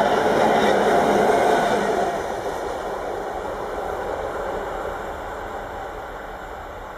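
Freight train's hopper wagons rolling past on the rails: a loud, even rush of wheels on track that drops about two seconds in as the last wagon goes by, then fades steadily as the train moves away.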